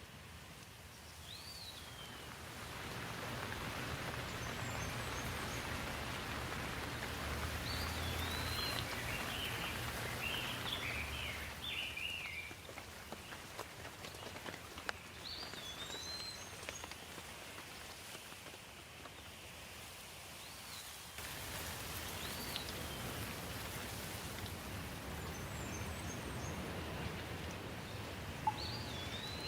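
Steady rain with birds chirping now and then over it. The rain swells about two seconds in and changes abruptly about two-thirds of the way through.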